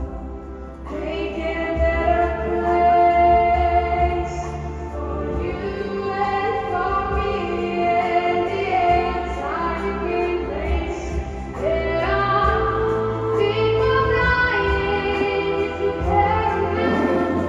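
A young female singer sings long, held notes with vibrato over a live orchestra; her voice comes in about a second in.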